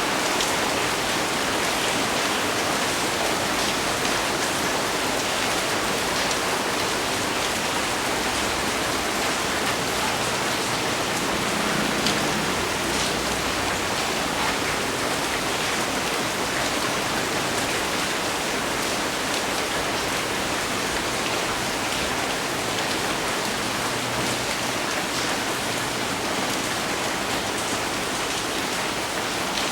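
Heavy rain pouring down steadily, a dense even hiss with scattered single drops heard sharper within it.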